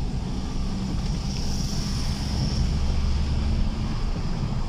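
Car driving along a paved road, heard from inside the cabin: a steady low engine and road rumble.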